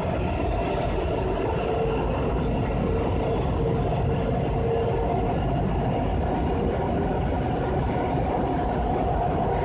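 Washington Metro railcar heard from inside the car while it runs: a steady rumble of wheels on rail with a constant tone above it, stronger for a few seconds in the first half.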